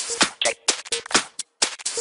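Electronic background music with a fast, steady beat of sharp percussive hits.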